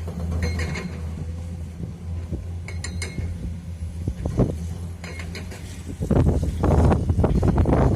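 A heavy excavator's diesel engine runs steadily, with a few short metallic clinks. About six seconds in, a loud, rough rumbling noise takes over.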